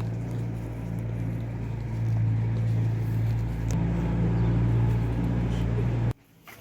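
An engine running steadily with a low, even hum, a little louder after about two seconds, then cut off abruptly near the end.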